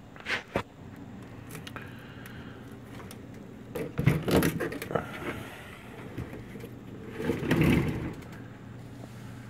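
Handling noises from an old radio chassis being moved about: a couple of short knocks near the start, then two longer bouts of scraping and rattling about four and seven and a half seconds in, over a steady low hum.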